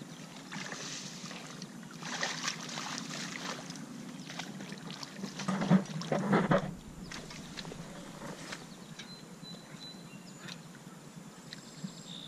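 Hooked channel catfish thrashing and splashing at the surface of the water as it is reeled in to the bank, with the loudest splashes about halfway through.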